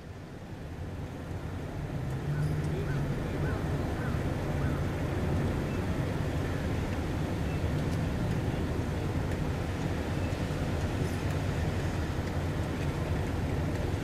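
Low-revving engines and exhausts of lowered cars creeping slowly into a car park: a steady low rumble that swells over the first couple of seconds as a car draws near, then holds level.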